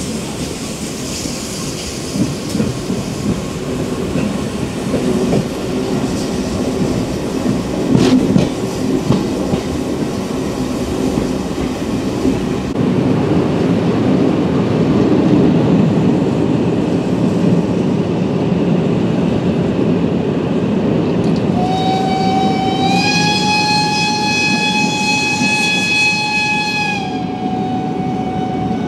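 A steam train running steadily on the rails, wheels rumbling and clacking. About two-thirds of the way through, the whistle of class 52 steam locomotive 52 7596 sounds one long blast of about five seconds; its pitch steps up slightly soon after it starts and drops back near the end.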